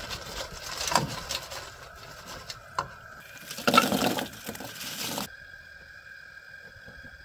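Hot oil sizzling and crackling in a propane fryer pot as a perforated aluminium basket of fried potatoes is lifted out, then the potatoes tumble out of the basket into a bowl, loudest about four seconds in. The noise stops suddenly a little past five seconds, leaving a faint steady hum.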